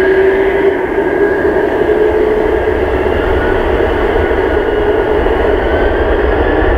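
Boeing 767 freighter's jet engines spooling up on the runway: a loud steady roar with a whine that rises slightly in pitch, then a low rumble building after about five seconds as thrust comes up for take-off.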